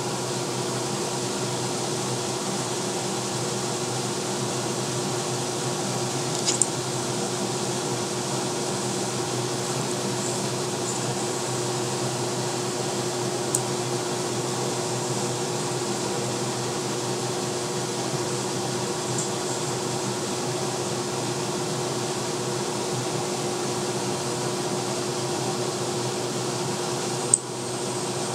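Steady hum and hiss with one low tone running through it, broken by a few brief clicks, the sharpest one near the end.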